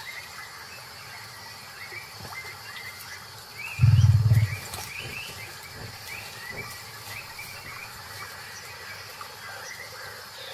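A tiger's short, low, rough growl about four seconds in, over steady high chirping calls in the background.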